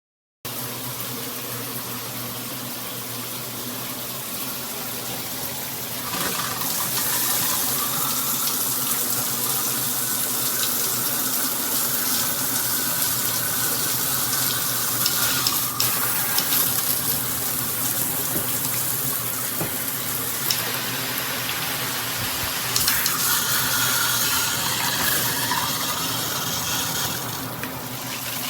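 Water spraying steadily from a Tudoccy rainfall/handheld combo shower head. It gets louder about six seconds in, and the spray sound shifts a few times after that.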